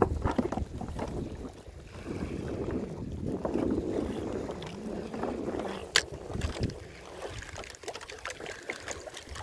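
Water sloshing and lapping with wind buffeting the microphone, and one sharp knock about six seconds in.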